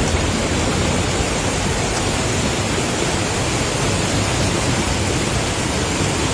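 Steady rushing of a swollen, brown flooded river pouring past in a torrent.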